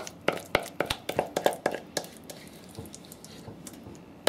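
A spatula scraping and knocking against a mixing bowl as soft sweet potato puree is scraped out into a glass baking dish: a quick run of about a dozen taps in the first two seconds, then only faint scraping.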